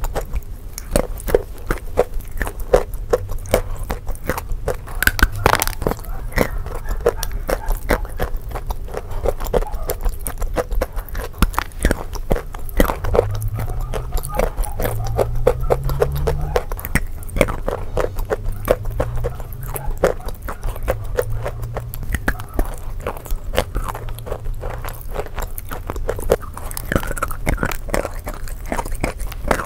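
Close-miked biting and chewing of a block of chalk coated in paste: soft crunches and many small crackles, one after another.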